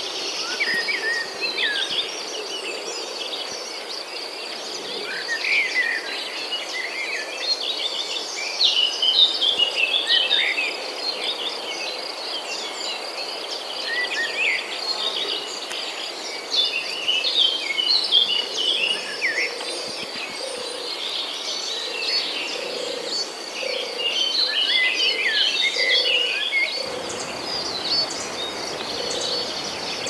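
Rainforest-style ambience: a steady high insect trill, like crickets, under many overlapping songbird chirps and whistles. Lower repeated calls come in around the middle, and a low rumble joins near the end.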